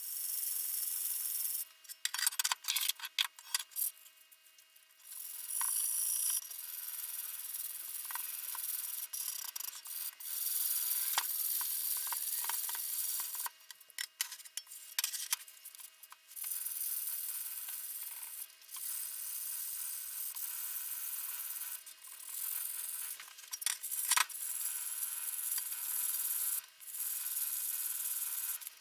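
Hand rubbing and scraping on a tool part, as in sanding, scrubbing or rust removal. It comes in scratchy stretches of a second to a few seconds, broken by short pauses and sharp clicks.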